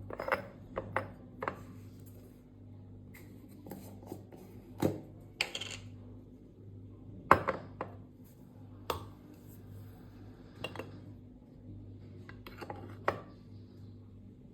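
Scattered light clinks and knocks of small hard objects being handled, about a dozen at irregular intervals, over a low steady hum.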